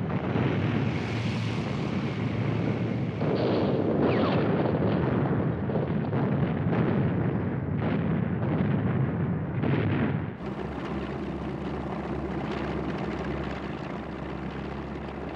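Battle sound effects: a dense rumble with several blasts. About ten seconds in it cuts abruptly to the steady drone of a propeller aircraft engine.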